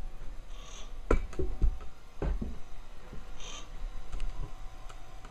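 Homemade pulse-driven resonance motor running, a wheel rotor turning past electromagnet coils, with a faint high squeak coming back about every three seconds. Deep thumps of the camera being handled close to the microphone are the loudest sound, about one and two seconds in.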